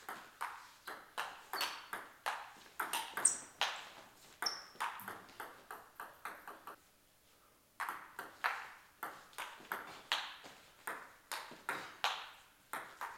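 Table tennis rally: the ball clicks sharply off the bats and the table in a quick back-and-forth, about three hits a second, and the bats are faced with pimpled rubbers, attacking short pips against long defensive pips. The play breaks off for about a second a little past halfway, then a new rally starts.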